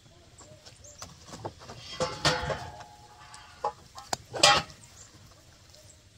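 Handling noise as a long part of a solar tracker kit is pulled out of its cardboard packing in a pickup bed: light rustling, then two louder scraping bursts about two and four and a half seconds in.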